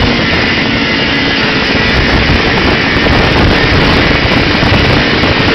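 Old Arctic Cat Pantera snowmobile's two-stroke engine running steadily under way along a snow trail, loud and even throughout.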